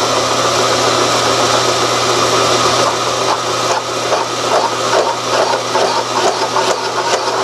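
Milling machine running with a boring head on power feed, taking a small cut in soft cast aluminium: a steady motor hum and cutting noise. From about four seconds in, a light repeating tick comes in, about three a second.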